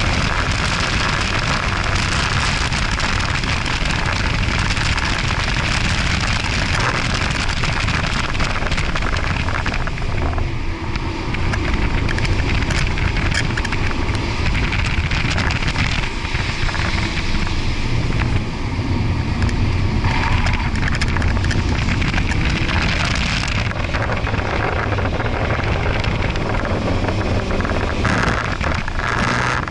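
Ford Focus RS's turbocharged 2.3-litre four-cylinder driven hard on track, heard from inside the cabin under a steady rush of wind and tyre noise. The engine pitch rises and falls as the car accelerates and slows for corners.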